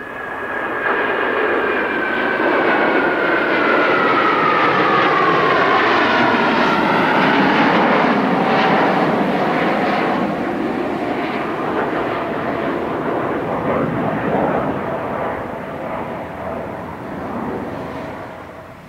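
A four-ship formation of F-15J Eagle fighters passing overhead, their twin-engine jet roar swelling and then fading as they move away. A high whine falls steadily in pitch through the first half of the pass.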